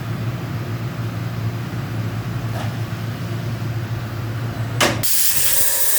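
DMG Mori NVX7000/50 CNC vertical machining center running with a steady hum. About five seconds in there is a click, then a sudden loud hiss.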